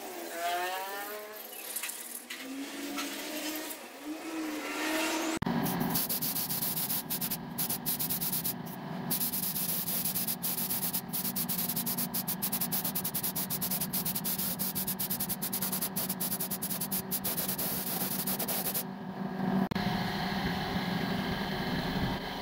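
Compressed-air spray gun hissing as paint is sprayed, starting suddenly about five seconds in and broken by many short trigger pauses, over a steady low hum. Before that, a wavering pitched whine.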